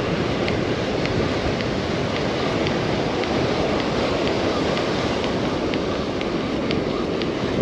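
Steady rush of breaking surf and wind on the microphone. Under it, a faint tick about twice a second from a spinning reel being cranked to bring in a hooked fish.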